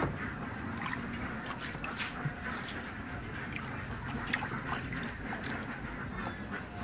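Shallow water sloshing and dripping in a plastic basin as a hand stirs it, with a few small splashes or clicks scattered through.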